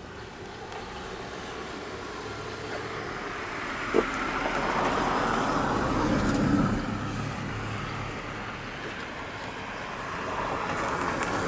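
A passing road vehicle outside: a rushing noise that swells to a peak and fades, then builds again near the end. One sharp click about four seconds in.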